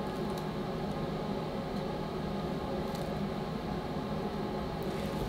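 Steady room tone: an even hiss with a low hum, and no distinct events.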